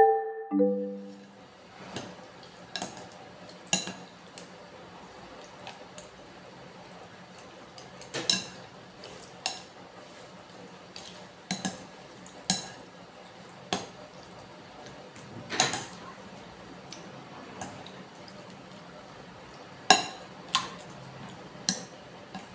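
Cutlery clinking and scraping against a bowl, about a dozen sharp clinks at irregular intervals over a faint steady hiss. A short marimba-like jingle ends in the first second.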